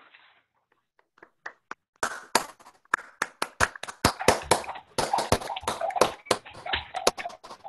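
Hands clapping: a few faint claps, then brisk applause from about two seconds in that stops just before the end.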